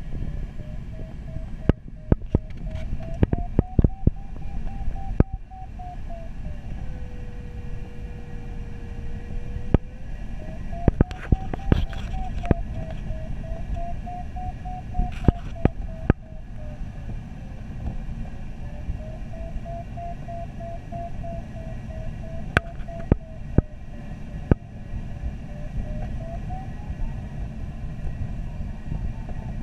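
Inside a glider cockpit in flight: a steady rumble of airflow, with the audio variometer's tone wavering slowly up and down in pitch as the lift changes. It sits lower and flat for a few seconds about a quarter of the way in and rises near the end. Sharp crackles come through the recording now and then.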